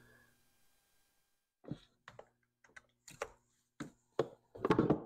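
A dozen or so light clicks and knocks over about three seconds, starting a little under two seconds in: someone moving about and handling things while going to plug in the milling machine. A faint low hum runs underneath.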